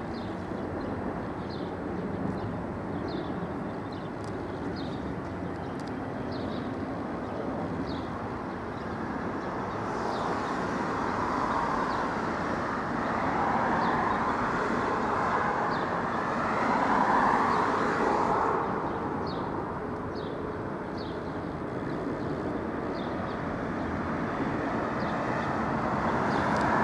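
Airbus A380-800 airliner's jet engines, a steady rumble that swells louder about halfway through, peaks a few seconds later and eases off again.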